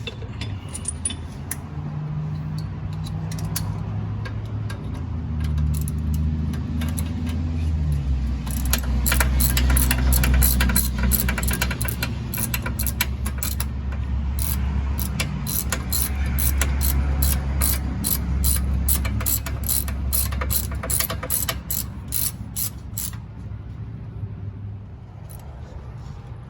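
Hand ratchet wrench clicking in a rapid, even run for about fifteen seconds, then stopping, over a low hum whose pitch steps up and down.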